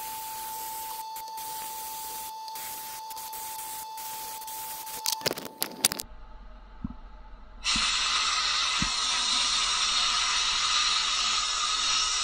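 Sandblasting cabinet blast gun hissing steadily with a thin whistle-like tone, breaking off with a few sharp clicks about five seconds in. After a short lull with a few knocks, the blast starts again, louder, a steady hiss from about eight seconds in.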